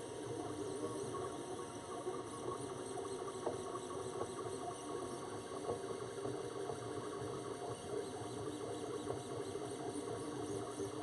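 2016 Printrbot Simple 3D printer printing: its stepper motors whir and whine with small ticks. The motors constantly speed up and slow down, so the pitch rises and falls, and the changes of direction are gentle, smoothed by the acceleration control of its Printrboard G2 running TinyG firmware.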